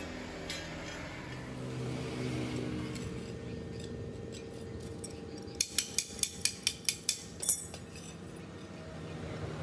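A steady low machine hum, with a quick run of about eight sharp metallic clicks a little past the middle, roughly four a second.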